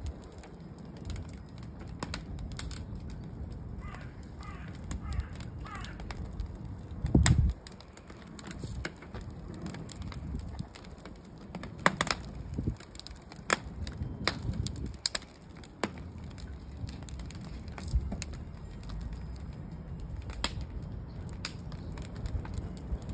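Birch-log fire burning in a metal fire pit, crackling with frequent irregular sharp pops and snaps over a low rumble of wind on the microphone. A loud low buffet about seven seconds in.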